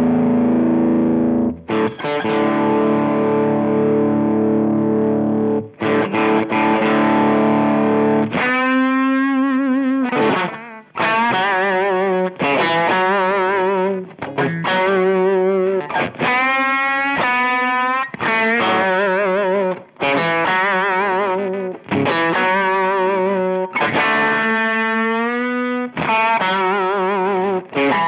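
Electric guitar played through a Chevtone Messiah Drive, a British amp-style overdrive pedal, with a crunchy distorted tone. For about eight seconds it rings out held chords, then switches to a lead line of single notes with string bends and vibrato.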